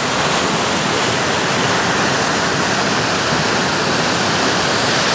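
River rapids: white water rushing over and around rocks, a loud, steady, unbroken rush.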